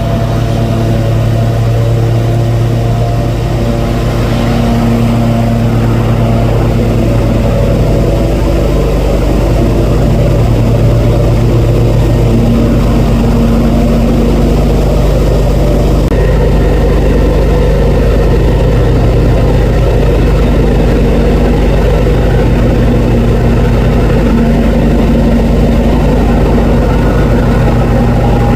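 Lawn mower engine running steadily, getting a little louder about four seconds in.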